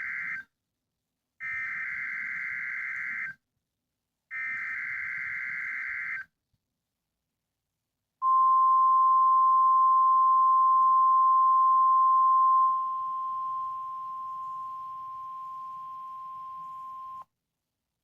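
NOAA Weather Radio weekly-test alert signals. The first is the end of one SAME digital header burst followed by two more, each a harsh warbling data screech about two seconds long. After a short pause comes the steady single-pitch 1050 Hz warning alarm tone, which lasts about nine seconds, drops in level about halfway through and cuts off abruptly.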